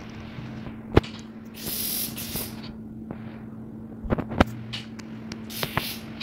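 A steady low hum, with a few sharp taps and two short bursts of hiss.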